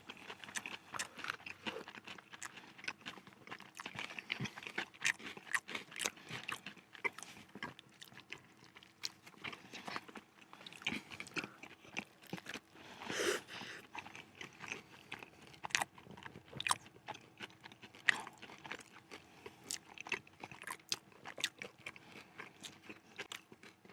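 People chewing and biting into a crispy fried-chicken zinger burger, with many short sharp crunches scattered throughout.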